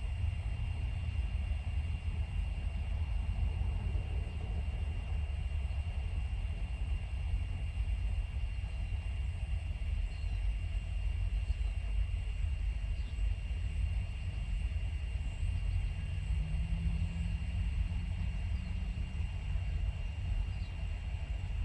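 Steady low rumble heard from inside a parked car, with a faint steady high-pitched whine over it.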